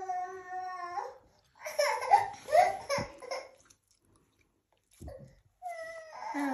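Young children's wordless vocalising: a long held 'aah' note that breaks off about a second in, then babbling with rising and falling pitch, a short pause, and more babbling near the end.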